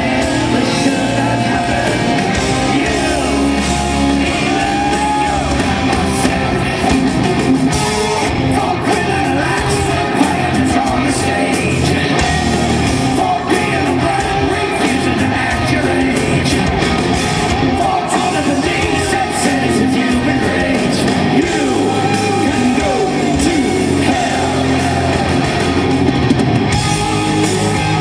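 Live hard rock band playing, with electric guitars, drums and a male lead vocalist singing, heard from the crowd in a large hall.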